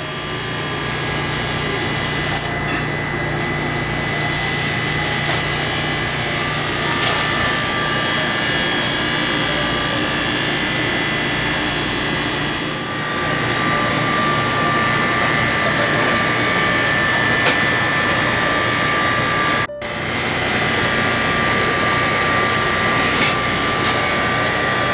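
Steady mechanical hum and hiss of shop machinery, with two steady high whining tones over it; it drops out for a moment near the end.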